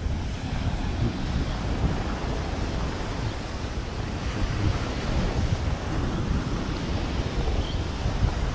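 Surf washing onto a beach in a steady wash, with wind noise buffeting the microphone.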